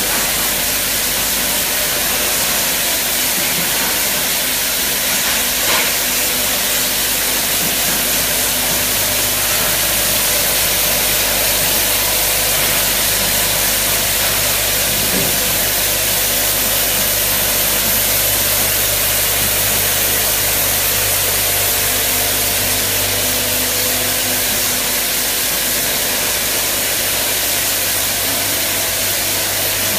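Syringe assembly machine running: a steady mechanical hiss and hum, with a single sharp click about six seconds in.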